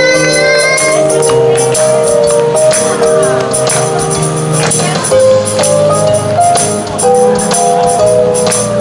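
Pop backing music with a steady beat and a sustained melody line.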